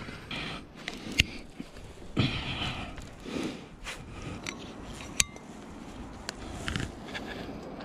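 Irregular scraping, rustling and crackling as gloves and clothing brush against pine bark and small branches during a tree climb, with a few sharp snaps and clicks.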